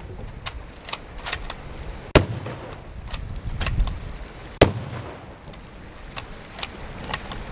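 Two shots from a .338 Lapua Magnum Armalite rifle with a muzzle brake, about two and a half seconds apart, the first about two seconds in. Lighter clicks and knocks come in between.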